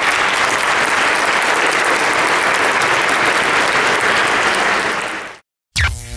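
Audience applauding steadily, cut off abruptly about five seconds in. Near the end, music starts with a whoosh.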